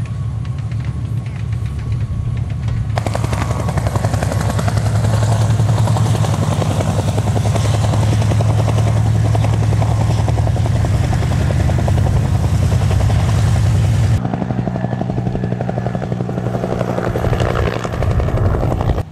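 Wright R-3350 radial engines of the B-29 Superfortress FIFI running as it taxis, turning abruptly louder about three seconds in as the bomber is close. About fourteen seconds in it cuts to a Bell AH-1 Cobra helicopter's rotor beating in a fast, even rhythm.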